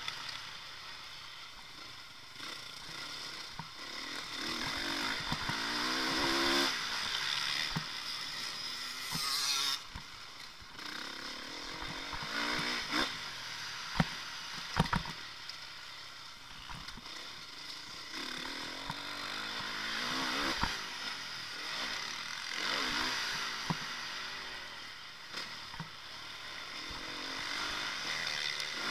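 Motocross motorcycle engine revving up and down through the gears as it rides a dirt track, heard from a camera on the bike, its pitch rising and dropping again and again. Two sharp knocks come about halfway through.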